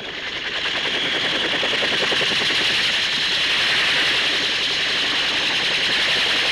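Fairey Rotodyne in flight: a loud, steady roar with a fast, even chatter running through it, swelling up over the first second.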